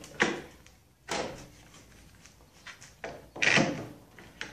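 Plywood vise knocked and slid against the workbench edge, then a bar clamp fitted onto it: a sharp knock about a quarter second in, a knock and scrape near one second, and a louder clatter of the clamp around three and a half seconds in.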